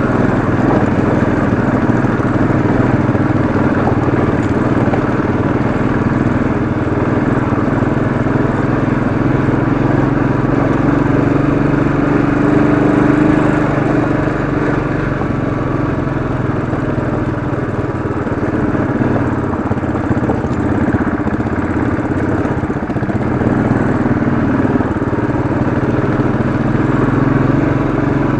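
Royal Enfield Classic 500's single-cylinder engine running steadily under load, pulling the motorcycle up a steep dirt climb.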